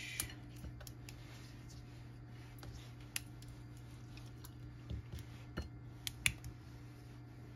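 A silicone pastry brush dabbing marinade onto a swordfish steak on a ceramic plate: soft wet brushing with a few scattered light clicks of the brush against the plate, over a steady low hum.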